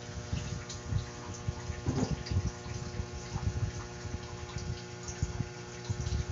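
Irregular low rumbling and soft bumps of handling noise as the phone, milk carton and glass are moved about, over a faint steady hum.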